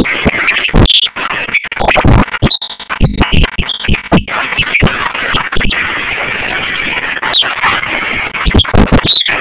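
Loud dance music played over a party sound system, distorted and clipping on the camera's microphone, with sharp clicks through it.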